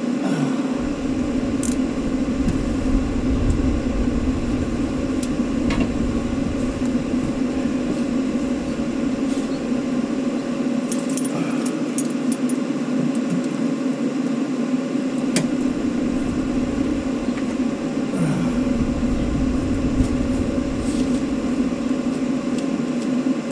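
Steady mechanical hum with scattered short metallic clicks, and a low rumble that comes and goes.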